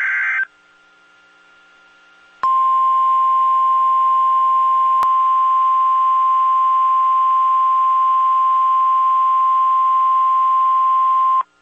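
End of a SAME digital data burst, a brief electronic buzz, followed after a two-second pause by the NOAA Weather Radio 1050 Hz alert tone, one loud steady beep held for about nine seconds before it cuts off.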